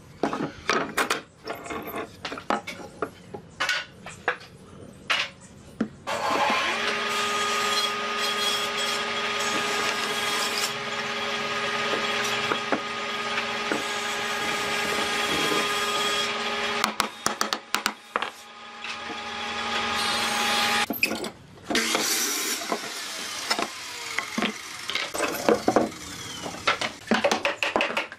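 Woodworking power tool running on wood, with a steady motor whine under the noise of the work. It runs for about ten seconds, stops, then starts again in shorter spells. Before it starts, wooden pieces are knocked and handled.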